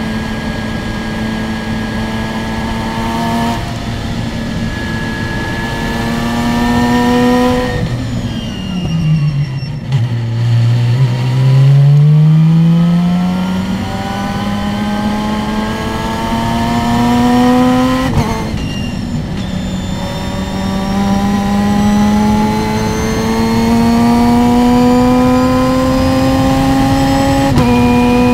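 Open-wheel race car's engine heard onboard at full throttle, its pitch climbing through the rev range with quick upshifts about 3.5 seconds in, near 18 seconds and near the end. Around 8 seconds in the revs fall away sharply under braking and downshifts for a corner, then build again as it accelerates out.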